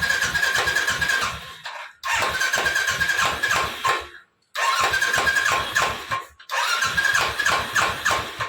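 Royal Enfield 350 being cranked on its electric starter in repeated tries, four bursts of about two seconds with short pauses between them. The starter whines steadily under rapid low pulsing, and the engine does not catch.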